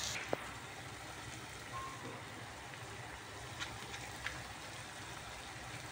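Fish paste sizzling gently in a wok, a faint steady hiss, with a few light ticks as dried shrimp are tipped into the pan from a bowl.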